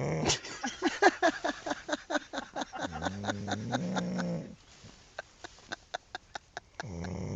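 A person snoring: a fast rattling snort of about seven pulses a second, with a low drawn-out groaning note about three seconds in and again near the end, the rattle fainter in between.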